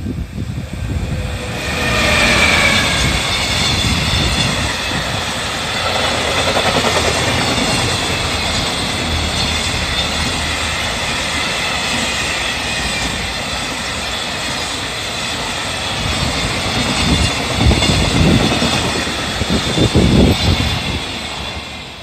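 EF210 electric locomotive hauling a long container freight train past at close range: a whine that falls in pitch as the locomotive goes by about two seconds in, then the wagons running over the rails with a steady noise. The noise is loudest in a few bursts near the end and fades as the tail of the train passes.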